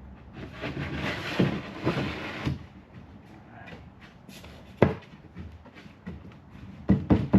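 Wooden cabinet parts being handled and fitted: about two seconds of scraping and rustling, then a single sharp knock, and a quick run of knocks near the end.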